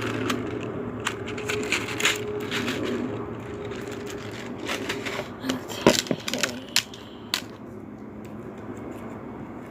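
Small plastic beads clicking and crackling as they are worked into slime, with a burst of louder clicks about six seconds in; the clicking thins out after about seven seconds, over a steady low hum.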